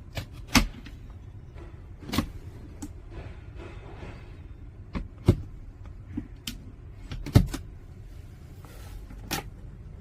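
A camper van's interior fittings being worked: about five sharp clunks and clicks a second or two apart, the loudest near the start and about three-quarters of the way in, over a low steady rumble.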